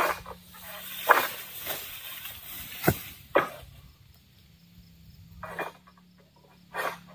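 A long-handled pole sickle working in the crown of an oil palm: about six sharp knocks and cracks as the blade strikes and hacks at the fronds, with a rustle of fronds through the first few seconds.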